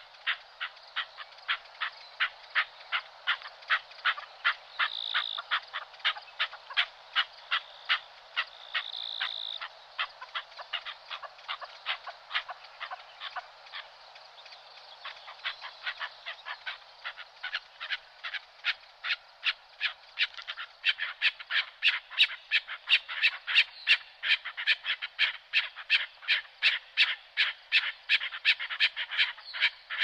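Frogs croaking in a steady, even run of short croaks, a few a second, growing louder about two-thirds of the way through. Two short high-pitched calls rise above them about five and nine seconds in.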